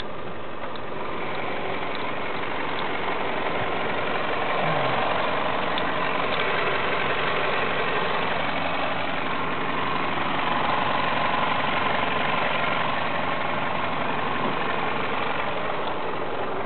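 A 2000 Toyota Solara SE's four-cylinder engine idling steadily in reverse with the parking brake set. In reverse it carries a noise that goes away in park and is nearly gone in drive. The owner has not been able to trace the noise after replacing all the engine and transmission mounts.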